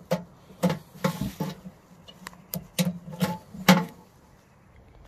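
Irregular sharp clicks and light knocks, about a dozen, as the wiring and metal parts inside a streetlight fixture are handled. They die away near the end.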